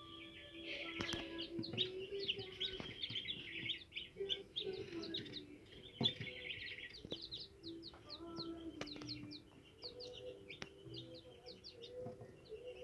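Day-old Brahma chicks peeping continuously, many short, high, falling cheeps overlapping, with a few sharp knocks among them.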